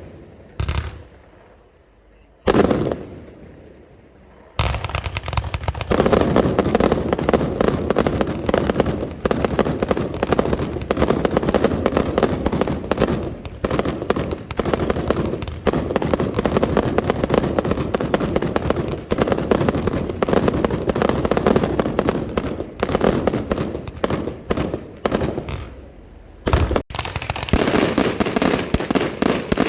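A fireworks display with shells bursting. A couple of separate booms come in the first few seconds. Then, from about four seconds in, a dense, rapid barrage of bangs and crackling runs on without a break, drops off briefly near the end, and starts again.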